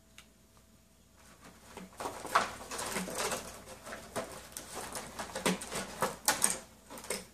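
Tissue paper and plastic packaging rustling and crinkling, with small clicks and knocks, as small toy pieces are dug out of a cardboard box. It starts about two seconds in, after near quiet.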